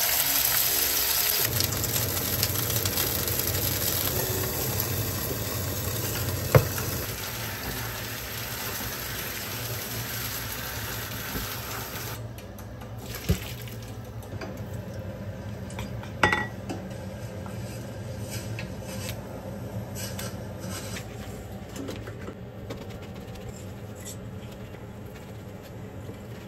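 A steak sizzling in hot oil in a frying pan, a loud steady hiss that drops away about twelve seconds in. After that come quieter water and sink sounds as cooked spaghetti is poured into a colander, with a few sharp clinks of pans and utensils.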